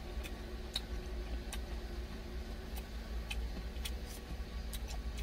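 Eating sounds: scattered small clicks of chewing and a plastic spoon in a plastic food tub, over a steady low hum.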